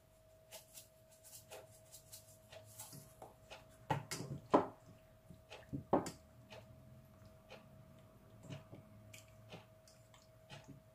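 Hands mixing marinated chicken pieces in a stainless steel bowl: soft wet squishes and scattered light knocks of meat against the bowl, a few louder ones around the middle. A faint steady hum runs underneath.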